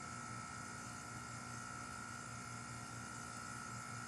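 Ruud Achiever central air conditioner's outdoor condenser running steadily: its scroll compressor and condenser fan make a steady low hum with a fainter high whine.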